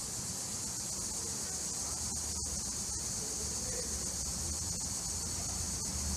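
Steady high-pitched chorus of night insects, with a low rumble coming in about two seconds in.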